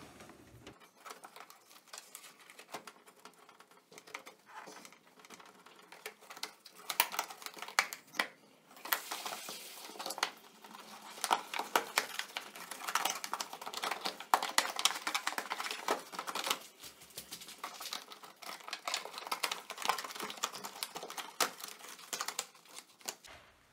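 Stiff plastic cowl panel of an Opel Vectra A, below the windscreen, being worked loose and pulled off by hand: a run of small clicks, knocks and crackles, with a short rush of rubbing about nine seconds in.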